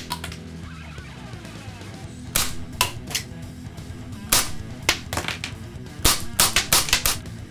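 Tanaka Works Desert Eagle .50AE model gun firing cap-loaded cartridges: a string of sharp cracks, spaced out at first, then a quick run of them near the end, over background music.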